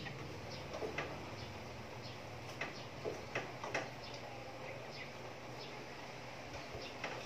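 A spatula tapping and scraping against a cooking pot as vegetables are stirred: a scatter of light clicks, the clearest in a cluster around three to four seconds in.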